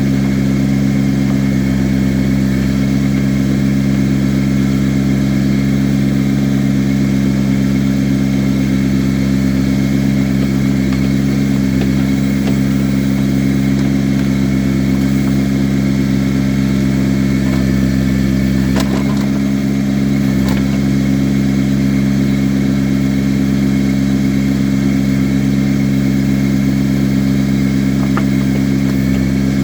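Engine of an earth-moving machine running steadily at an even speed while it works dirt over a culvert pipe, with a couple of faint knocks near the end.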